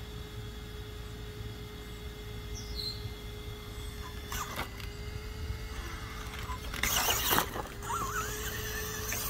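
Brushless-motor RC rock crawler whining as it crawls down concrete steps. Its tyres and chassis scrape and clatter on the concrete, loudest about seven seconds in as it drops off the bottom step. A wavering, rising motor whine follows near the end as it drives on.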